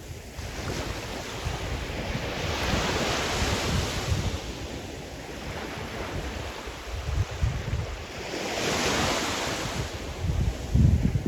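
Sea surf: waves breaking and washing ashore, the hiss swelling twice about six seconds apart, with low gusts of wind on the microphone, the strongest near the end.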